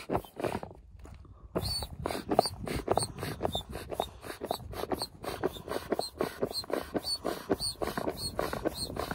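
Manual air pump inflating a float tube through a hose, worked in quick strokes of about three a second, each stroke a rush of air with a short squeak; the pumping pauses briefly about a second in, then picks up again.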